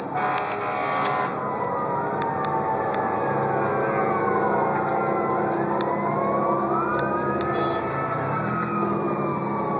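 Several emergency sirens wailing at once, typical of fire engines responding to a blaze, their overlapping tones slowly rising and falling, over a steady low rumble. A few sharp clicks sound in the first second.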